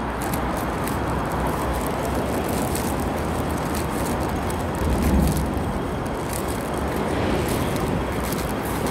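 Steady road traffic noise from a multi-lane road, with a louder low rumble about five seconds in.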